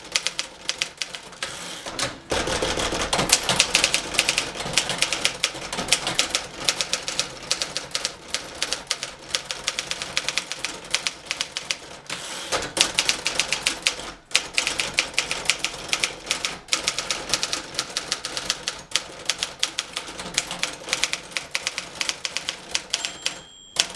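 1958 Remington Letter-Riter portable typewriter being typed on at speed: a fast run of keystroke clacks, broken by brief pauses about two seconds in and about halfway through. Near the end a short ringing tone sounds, the typewriter's line-end bell.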